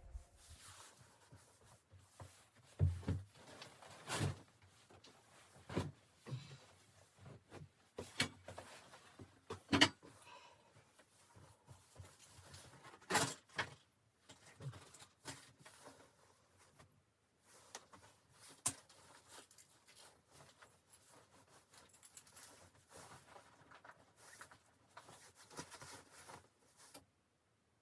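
Things being handled at close range: irregular knocks and clicks over soft rustling, the sharpest knocks about three, four, ten and thirteen seconds in.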